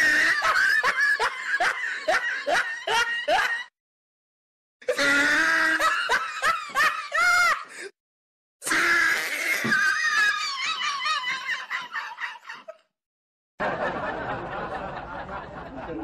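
Dubbed-in laughter sound effects: four separate laughing clips, each cutting off abruptly into dead silence before the next begins.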